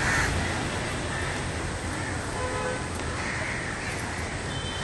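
City traffic ambience: a steady rumble of vehicles, with a brief distant horn toot about halfway through and crows cawing near the end.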